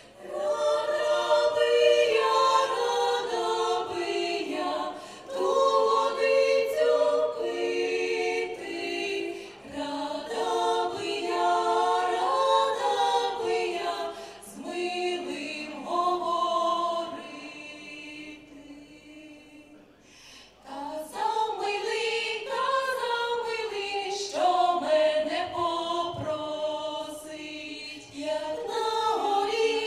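Women's vocal ensemble singing in several-voice harmony, phrase after phrase, with a short breath-pause about two-thirds of the way through.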